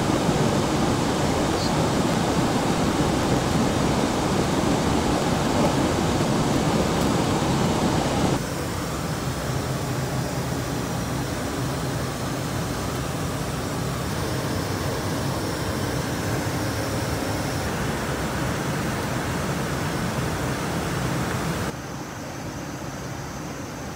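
Steady rushing cockpit noise of an Embraer Legacy 600 business jet in flight, airflow and air-conditioning hiss with no distinct tones. It drops abruptly in level about a third of the way in and again near the end.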